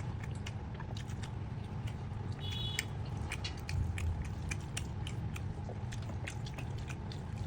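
Close-up eating sounds: a person biting and chewing chicken curry, with many quick, irregular wet clicks from the mouth over a steady low hum.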